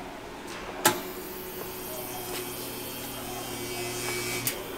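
Jacob's ladder display on a 12,000-volt transformer switched on with a click about a second in. It gives a steady electric buzz with a hiss over it, then cuts off with another click near the end.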